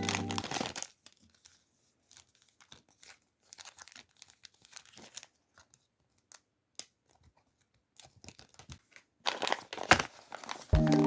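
Packaging being torn open and crinkled by hand: scattered small tears and rustles, louder and busier near the end. Background music stops in the first second and comes back just before the end.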